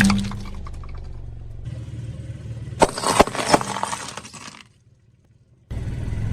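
A car tyre rolling over and crushing brittle objects: a sharp crack at the start, then a run of crunching and crackling about three to four and a half seconds in, over the low hum of the car. The sound cuts out for about a second, then the car's hum returns near the end.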